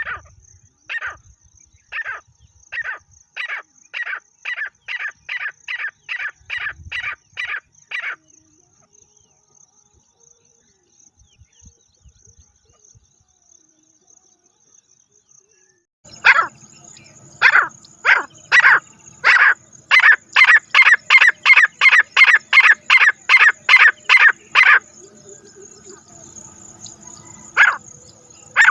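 Francolin calling in repeated sharp notes that speed up, in two bouts. The first ends about 8 seconds in. After a pause of about eight seconds, a louder bout starts and runs for about nine seconds, and a few single calls follow near the end.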